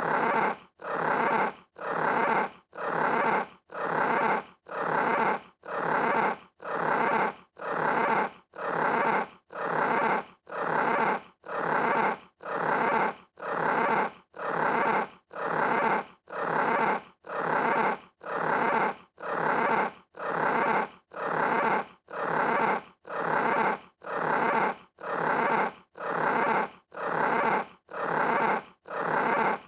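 Small cat meows, repeated evenly about once a second, each a little under a second long.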